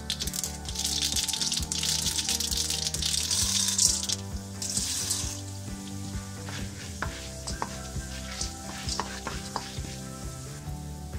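Hot oil sizzling in a wok as mustard seeds, cumin and urad dal fry for a tempering, with a wooden spatula stirring. The sizzle is loudest for the first five seconds or so, then settles into a quieter hiss with scattered sharp pops.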